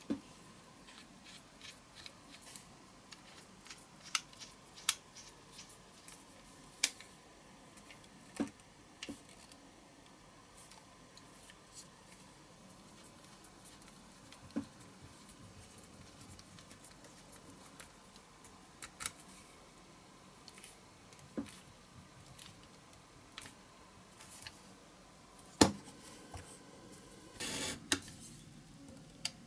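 Small clicks and taps of a little screwdriver working a screw in the base of a diecast Matchbox toy car, as the metal car is handled. A sharper knock near the end, followed by a brief rustle.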